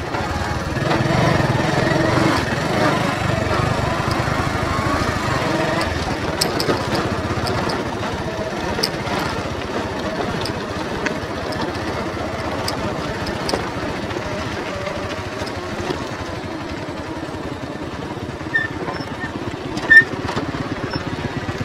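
Bajaj Boxer 100 motorcycle's small single-cylinder engine running steadily under way on a rough dirt track, a little louder in the first few seconds, with scattered knocks and rattles.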